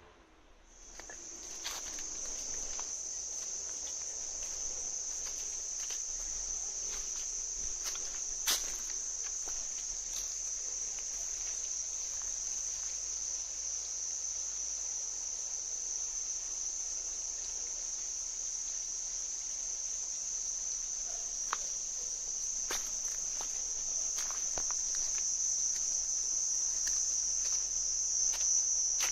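Chorus of insects giving one steady, high-pitched drone that begins about a second in and grows slightly louder toward the end. Faint scattered clicks sound over it.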